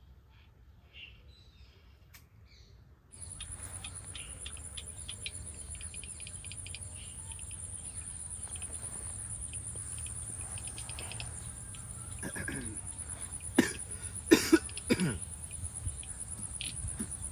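Insect chirring, a steady high-pitched buzz that starts suddenly about three seconds in and then carries on unchanged. A few sharp knocks and clicks stand out about 13 to 15 seconds in and are the loudest sounds.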